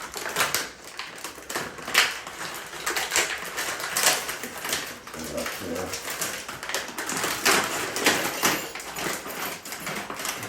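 Rapid, irregular clicking and rattling of a door lockset's parts being handled and fitted by hand, stopping abruptly at the end.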